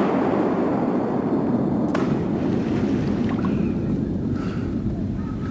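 Steady sloshing of shallow flood water, as from wading through flooded timber, with a faint click about two seconds in.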